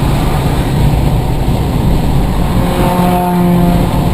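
Steady road and engine rumble inside a moving car. About three seconds in, a brief steady pitched tone sounds over it for under a second.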